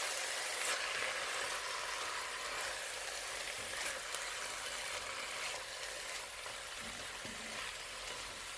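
Chicken pieces and onion frying in olive oil in a cast iron stock pot: a steady sizzle, with a couple of faint knocks.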